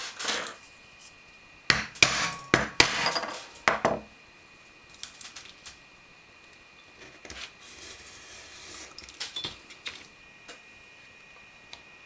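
A round metal hole punch struck through leather on a plastic cutting board: a quick run of about seven sharp knocks over two seconds, then lighter tapping and handling of the leather and tools.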